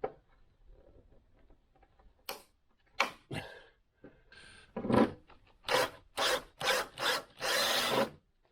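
A tool scraping at the motorcycle's turn-signal mount in a series of short rasping strokes that come quicker near the end, the last and longest lasting about a second.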